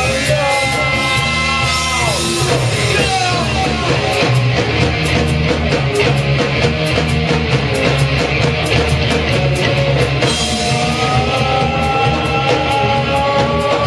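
Rock band playing live: drums keep a steady fast beat under electric guitar and bass, with a held melody line that slides in pitch.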